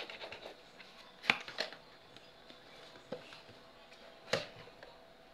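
Sharp plastic clicks and snaps as a thin plastic pry card is worked into the seam of a Philips digital alarm clock's screwless, firmly stuck case to pop it open. The loudest click comes about a second in, and three more follow over the next few seconds.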